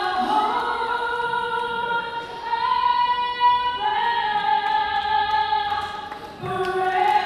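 Music with choir-like voices holding long sustained notes that shift to a new chord every second or two.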